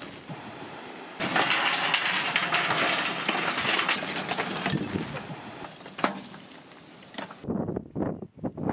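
Lump charcoal poured from a sack into a galvanized steel grill tray, the chunks clattering and clinking against each other and the metal for about five seconds, ending with a single sharp knock.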